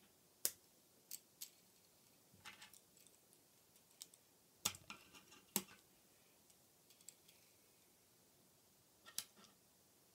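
Hard plastic K'NEX pieces clicking and knocking as the propeller assemblies are snapped onto the model airplane's wing: a scattering of short, sharp clicks, about eight in all, the loudest near the middle.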